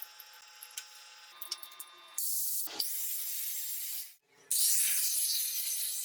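Angle grinder fitted with a homemade blower attachment, blowing a loud hissing rush of air. It starts about two seconds in after a few faint clicks, cuts out briefly near the fourth second, then comes back louder.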